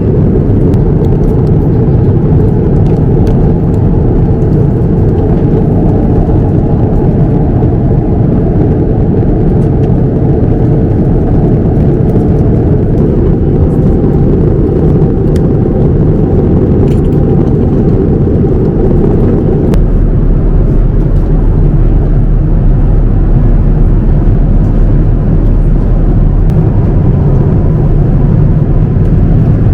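Steady cabin noise of a Boeing 787-9 airliner, engine and air noise heard from inside the cabin. Its low tone shifts about two-thirds of the way through.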